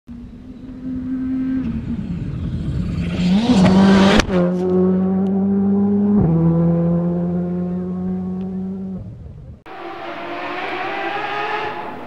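Race car engine at high revs. Its pitch climbs to a sharp break about four seconds in, then holds a high, steady note with a shift about six seconds in. It cuts off abruptly near the end, leaving a quieter outdoor background with a faint engine hum.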